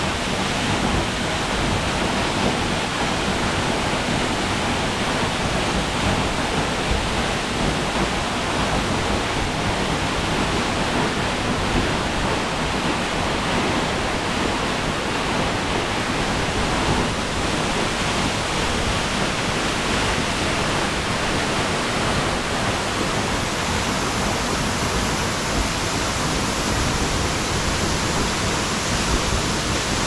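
Waterfall pouring down a rock face onto boulders at its foot, a steady rush of falling and splashing water.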